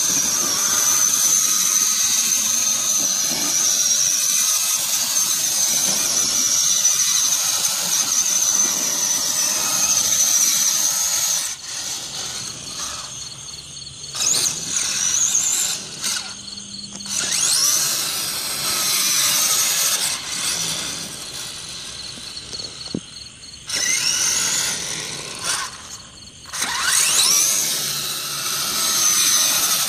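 Electric RC truck's motor and gears whining at high pitch, held steady for about eleven seconds and then in short bursts of throttle, the pitch rising as the truck accelerates.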